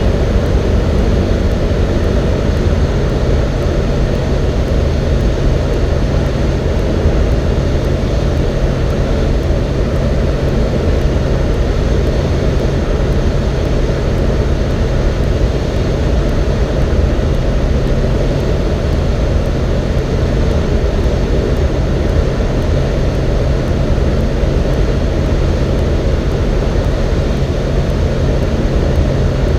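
Cessna 172N's four-cylinder Lycoming engine and propeller droning steadily, heard from inside the cabin.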